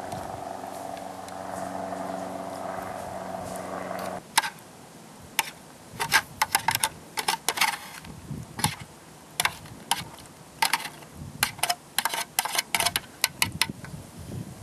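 A steady low hum that cuts off about four seconds in, followed by a metal spoon clinking and scraping against an opened fish tin in quick, irregular strokes as the fish is spooned out.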